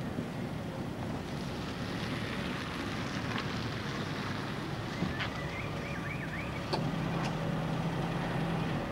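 A car driving slowly up and pulling in, its engine running under a steady rush of tyre and wind noise, with a couple of clicks near the end.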